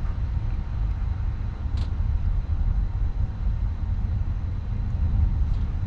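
Steady low rumble of a bus's engine and tyres heard from inside the moving bus, with a brief faint tick about two seconds in.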